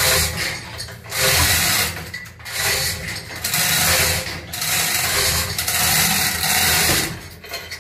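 Manual chain hoists being worked hand over hand to lift a heavy boat engine: the steel chains rattle and the hoists click through their ratchets in a series of pulls, about one a second.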